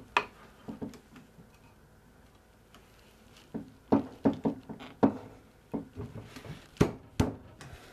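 Knocks and clicks of glued wooden chair-back parts being pushed together onto their dowels by hand: a few light taps at the start, a pause, then a run of about a dozen knocks through the second half.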